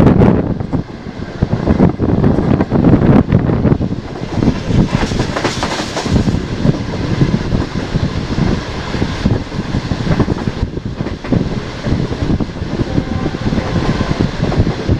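Pakistan Railways passenger express train passing at high speed, its wheels clattering rapidly over the rail joints, loud at first and slowly easing.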